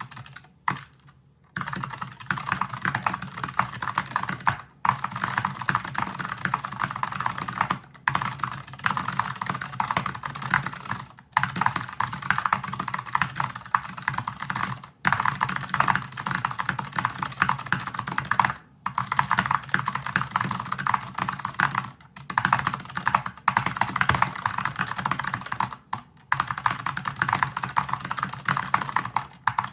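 Very fast typing on a Razer DeathStalker V2 low-profile keyboard with clicky switches and berry-profile keycaps: a dense, continuous stream of key clicks, broken by short pauses every three to four seconds.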